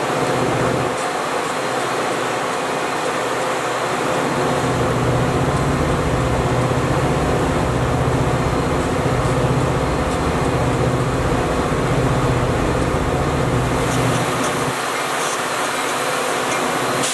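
Metra diesel push-pull commuter train of bilevel gallery cars running past on the tracks, a steady rail rumble with a low diesel drone that pulses slowly. About fifteen seconds in the low drone drops away and the rumble thins.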